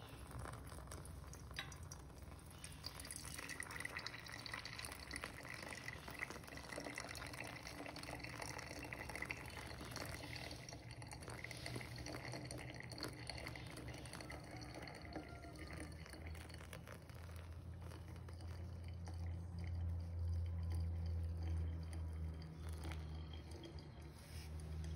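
Hot water poured from a pot onto ground coffee in a paper filter, splashing and trickling into the grounds, with drips as the pouring pauses. A low rumble comes in from about two-thirds of the way through.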